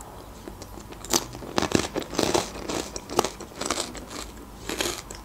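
Close-up crunching of dry bread croutons being bitten and chewed, a run of irregular crisp crunches starting about a second in.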